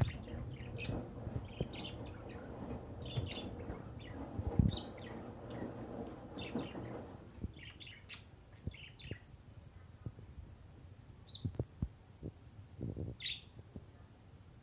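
Small birds chirping in short, repeated high calls throughout. Under them, for about the first seven seconds, the Electrolux LFE14 washing machine churns with a low motor hum, which then fades out, leaving a few scattered knocks.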